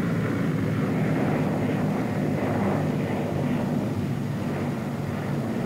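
Twin radial piston engines of a P-61 Black Widow droning steadily as the plane flies past.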